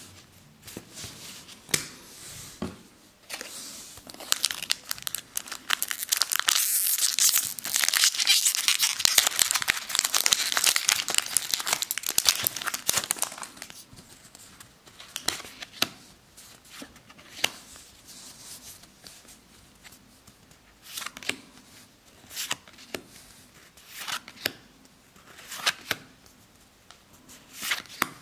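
A Magic: The Gathering booster pack's foil wrapper is torn open and crinkled for about ten seconds, starting a few seconds in. After that, cards are slid off the stack one at a time, each making a short flick every second or two.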